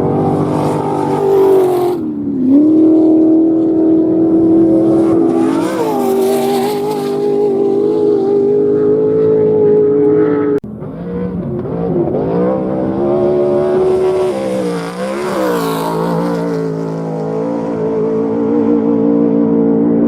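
Off-road race vehicle engines running at high revs. The pitch holds steady for stretches and dips and climbs back several times as the throttle is eased and reapplied. The sound breaks off abruptly about halfway through and picks up again.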